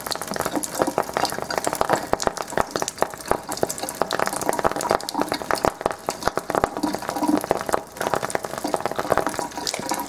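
Rapid, irregular crackling and popping where a lighter flame meets a thin stream of alkaline ionized (Kangen, 9.5 pH) water, over water running into the sink. The demonstrator puts the pops down to dissolved hydrogen gas igniting.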